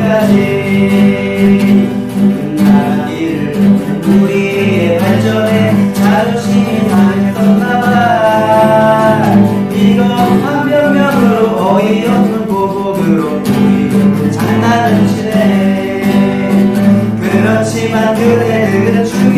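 A man singing a song in Korean while strumming a steel-string acoustic guitar.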